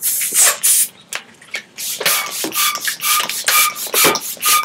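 Latex twisting balloons being squeezed and rubbed by hand: a rapid run of short rubbery scrapes, about three a second. From about two seconds in, most of them carry a steady squeak.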